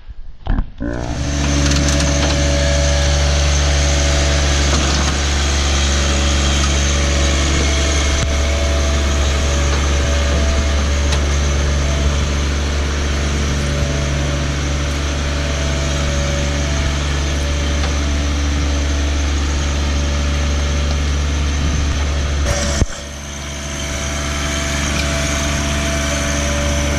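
John Deere compact tractor's engine running at a steady speed while it moves a stripped car shell. The sound dips abruptly about three-quarters of the way through, then builds back to the same steady note.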